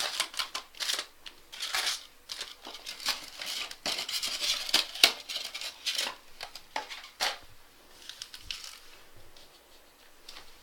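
Foil wrappers of trading card packs crinkling and rustling in quick, irregular handfuls as the packs are handled; the noise thins out after about seven seconds.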